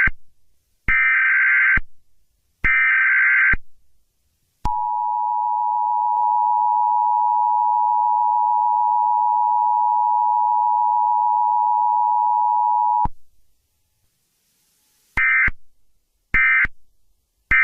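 Emergency Alert System tones. Two harsh, screeching digital data bursts open the alert, then the steady two-tone attention signal sounds for about eight seconds and stops abruptly. Near the end come three short bursts of the same screeching data tone.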